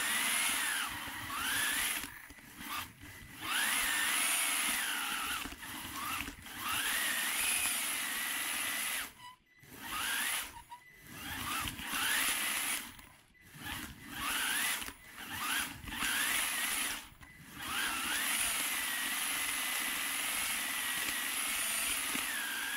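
Kyosho Mini-Z MA-020 AWD RC car's electric motor and gears whining, heard from the camera mounted on the car; the pitch rises and falls with the throttle and drops out briefly several times as the throttle is let off.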